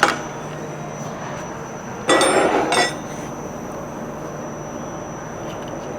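Steel parts of a progressive cavity concrete pump knocking and clinking as the pump foot is slid into place. A sharp metal knock comes right at the start, then a brief clattering run of clinks about two seconds in, over a steady shop hum with a faint high tone.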